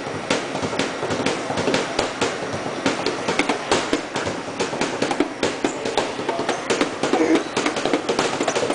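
Hands drumming a fast, busy beat on a shop counter: a dense run of taps and slaps.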